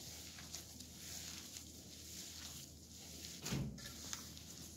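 Gloved hands kneading çiğ köfte (fine bulgur, spice paste and parsley) in a metal pan: faint, repeated squishing and rustling strokes, with one dull thump about three and a half seconds in.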